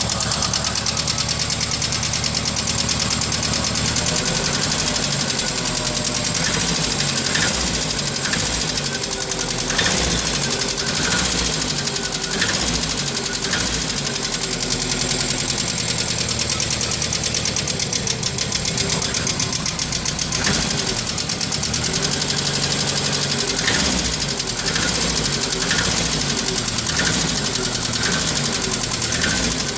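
Renault 12's engine running steadily with a noise the owner finds suspect, faint clicks recurring about every second over the engine sound.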